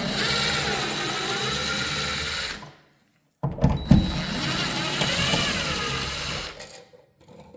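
Power drill driver running in two runs of about three seconds each, with a short pause between, backing the screws out of a wall switch.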